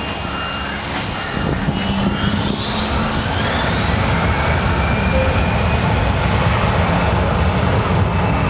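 Embraer Legacy business jet's turbofan engines spooling up on the runway for takeoff: a whine rises in pitch from about two seconds in, then holds steady over a loud, even engine rumble as the jet starts to roll.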